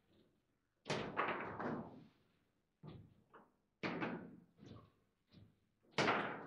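Table football in play: irregular hard knocks and clacks from the ball, the plastic player figures and the rods striking the table, each a short sharp hit. The loudest hits come about a second in and near the end.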